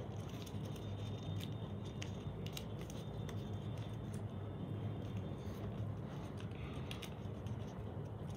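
Sheet of origami paper rustling and crinkling as it is folded and creased by hand, with scattered small crackles over a steady low hum.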